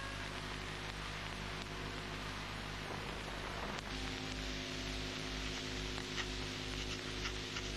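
Steady mains hum and hiss from an old film soundtrack, with no clear sound event over it.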